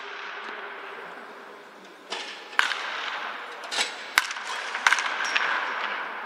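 Baseball bats hitting pitched balls in batting-practice cages: several sharp cracks a second or so apart, over a steady background din.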